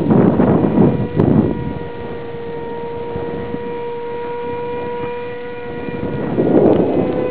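Radio-controlled model plane's motor and propeller, heard as a steady high drone that rises slightly in pitch. Wind buffets the microphone, loudest for the first second and a half and again near the end.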